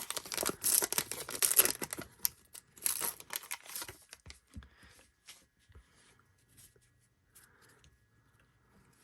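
A trading card pack's wrapper being torn open and crinkled, loud crackling for the first four seconds or so, then fainter clicks and rustles of the cards being handled.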